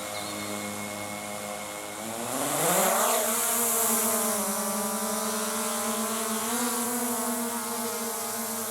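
AE86 PRO MAX quadcopter drone's electric motors and propellers giving a steady whine. About two and a half seconds in, the pitch rises and it grows louder with a rush of air as the motors spool up. It then holds a steady, higher whine with slight wavers.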